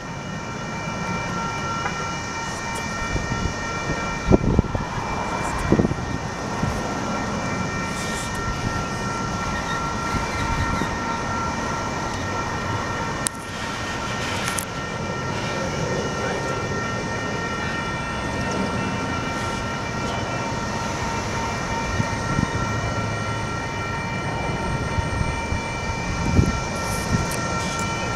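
Double-stack intermodal freight cars rolling past: a steady roar of steel wheels on rail with a steady high whine over it, and a few louder clanks about four and six seconds in and again near the end.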